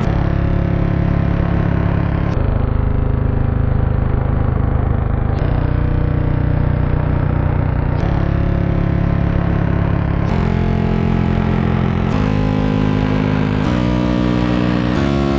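A cartoon alarm clock's loud, harsh buzz running without a break. Every couple of seconds it jumps to a new pitch, and from about ten seconds in it climbs in ever shorter steps.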